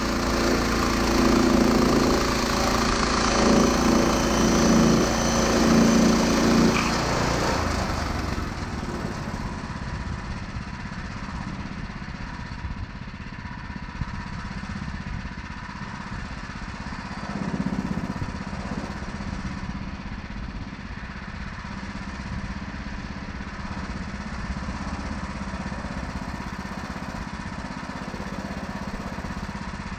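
Small gasoline engine of a Woodland Mills HM126 portable band sawmill running, louder with the band blade cutting through a cherry log for about the first seven seconds, then running on more quietly and steadily.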